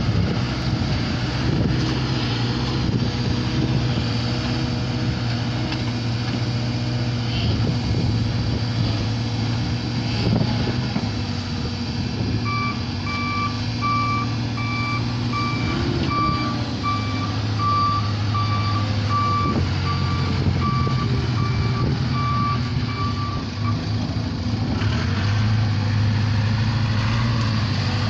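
Case 580K backhoe's diesel engine running, its pitch shifting a little now and then as it works. Midway its reversing alarm beeps steadily for about eleven seconds, then stops.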